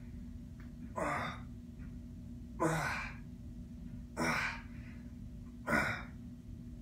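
A man's hard, breathy exhalations as he pulls an underhand-grip barbell bent-over row: four sharp breaths out, one with each rep, about every second and a half.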